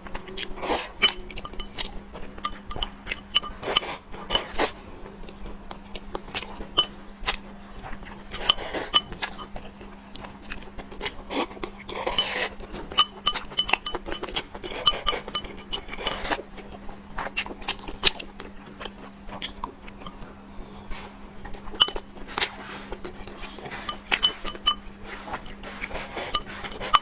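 Close-miked eating sounds: utensils clinking and tapping against dishes in frequent, irregular short strikes, with bites and chewing between them, over a steady low hum.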